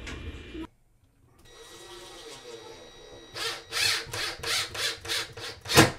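Cordless drill driving a screw into the wall in a string of short trigger bursts, about three a second, in the second half; the last burst near the end is the loudest. A low steady rumble at the very start stops abruptly.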